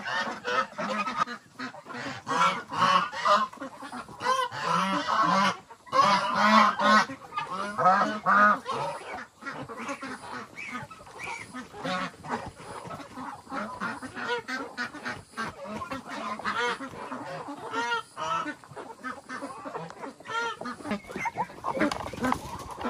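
A flock of farm poultry calling: many short overlapping calls, busiest in the first third.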